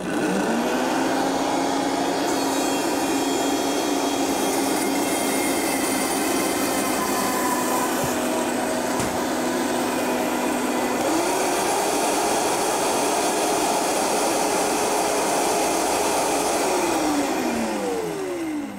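High-powered countertop blender running, pureeing a thick corn sauce. The motor spins up at the start and speeds up about eleven seconds in. It winds down near the end, its pitch falling as it stops.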